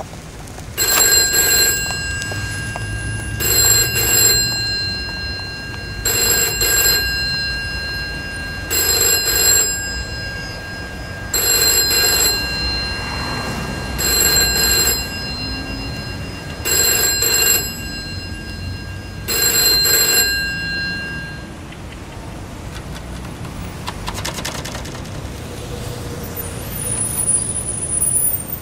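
Telephone ringing: eight rings of about a second each, repeating a little under every three seconds, then it stops. A low steady rumble runs underneath.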